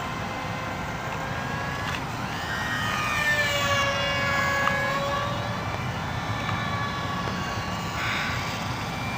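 Whine of a small electric R/C airplane's motors and propellers in flight, several high tones whose pitch sweeps up and down as the plane passes and turns.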